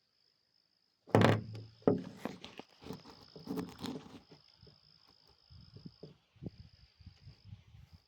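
Crickets trilling steadily on one high note, broken by short gaps. About a second in, a loud thump, then a sharp knock and a few seconds of clattering knocks and rustles.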